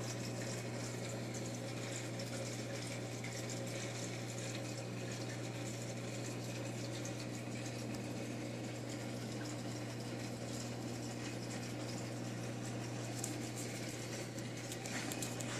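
Running reef aquarium: a steady low hum from its water pumps over the even hiss and bubbling of circulating water.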